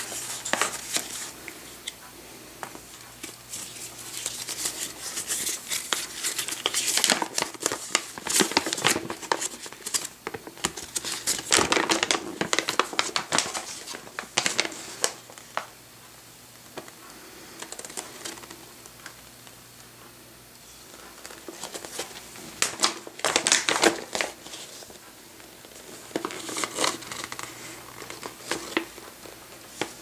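A folded paper rules sheet rustling and crinkling as it is unfolded and handled, in irregular bursts with a quieter stretch about halfway through.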